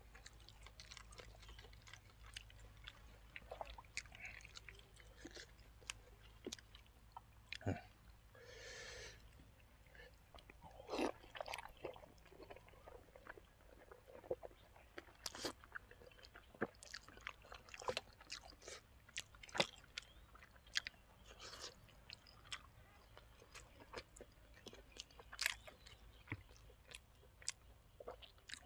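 A person chewing and biting braised pork leg and fresh vegetables close to the microphone: faint, irregular wet smacks and clicks. There is a brief rushing sound about nine seconds in, over a steady low hum.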